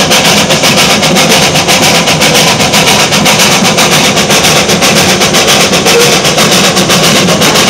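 Narrow-gauge NA class 2-6-2T steam locomotive working hard, its exhaust beats coming in a fast, even rhythm of several a second.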